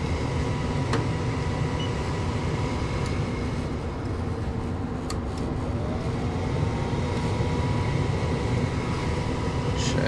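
Lennox EL180 gas furnace running: a steady fan hum and rush with a faint steady whine, and a tone that rises a little past halfway and then holds. A few light clicks.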